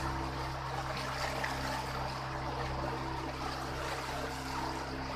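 Small tour boat's motor running at a steady pitch, with water rushing and splashing along the hull as the boat moves.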